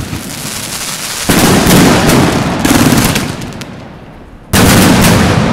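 PyroMeister Brasilian Box 19-shot fireworks cake firing up close: loud, rapid crackling and hissing from the shots. It surges louder about a second in, again near three seconds, and sharply again near the end.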